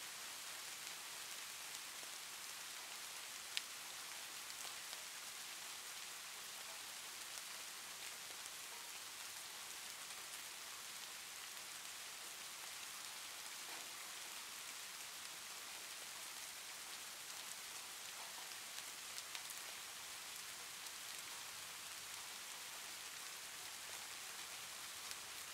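Faint, steady hiss of noise, with a few faint clicks, one sharper about three and a half seconds in.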